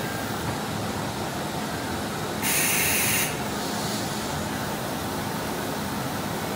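Steady noise of running CNC router shop machinery, with a short, loud hiss of compressed air about two and a half seconds in, lasting under a second.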